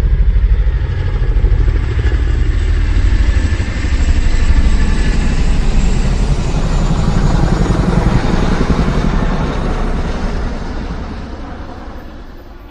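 An engine running with a loud, deep, pulsing rumble that fades away over the last couple of seconds.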